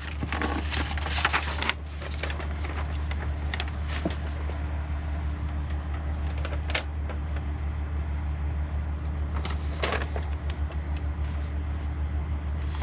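A steady low background hum with a faint constant tone, broken by a few short rustles and light knocks of handling, most of them in the first couple of seconds.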